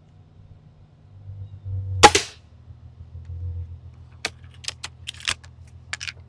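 A single loud air rifle shot about two seconds in, followed by a run of quieter sharp clicks and knocks from handling the rifle.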